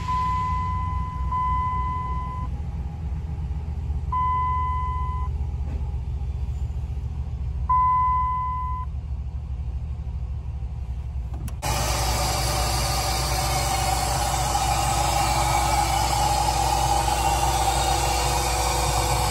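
A 2004 Ram 1500's 4.7-litre V8 idling steadily, heard first from the cab with a dashboard warning chime sounding several times in one-second beeps. About eleven and a half seconds in, the sound switches to the open engine bay, where the idling engine is louder and hissier.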